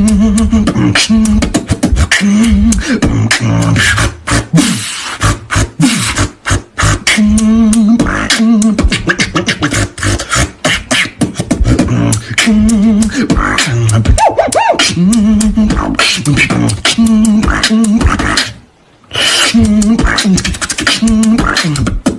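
Human beatboxing into a microphone: a fast, dense beat of vocal kick, snare and hi-hat sounds over short hummed bass notes, with a brief break about nineteen seconds in.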